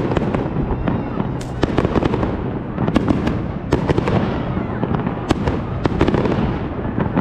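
Fireworks display: a rapid run of sharp bangs, more than a dozen irregularly spaced, over a continuous noisy wash.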